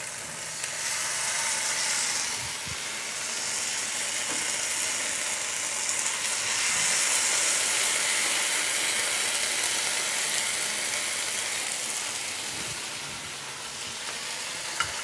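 Marinated chicken breasts sizzling in a hot non-stick frying pan as they are flipped to sear the second side. A steady hiss that swells about two seconds in and again midway, with a few faint taps.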